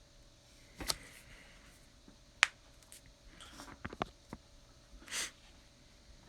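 Scattered clicks and light handling noises: a click about a second in, a sharp louder click about two and a half seconds in, a cluster of small clicks around four seconds and a brief swish a little after five seconds, over a faint steady hum.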